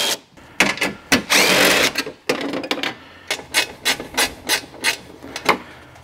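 Cordless impact wrench running in short bursts on the bolts, the longest and loudest burst about a second and a half in. Then a string of irregular clicks and clanks as the loosened bolts and metal bar are handled.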